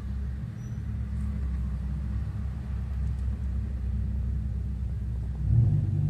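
A steady low rumble with nothing above it. It swells briefly near the end.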